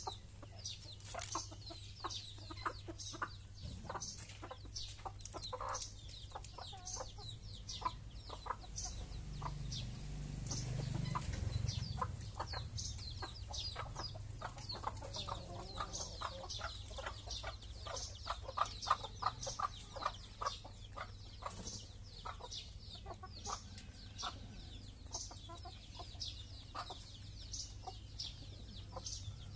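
Chickens clucking as they feed, with many short high chirps throughout and a low rumble swelling briefly about ten seconds in.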